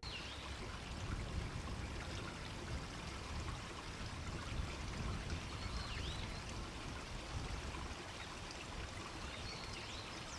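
Strong wind blowing, a steady rushing noise with a heavy low rumble on the microphone. A few faint high chirps swoop up and down near the start, about six seconds in and near the end.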